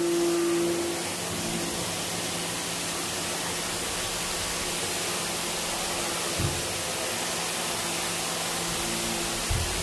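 Pressure washer spraying water onto a bus floor: a steady hiss of spray with a steady hum underneath. Two brief thumps in the second half.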